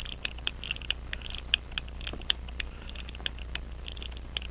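Hamilton 910 pocket watch mainspring being wound by hand: a rapid, uneven run of small ratchet clicks from the click working over the ratchet wheel.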